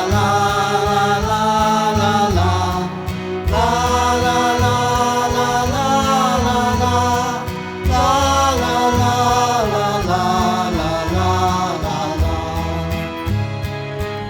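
Music: a slow song with a sung or chant-like melody, no clear words, over an accompaniment with a strong steady bass. The phrases break briefly about three and eight seconds in.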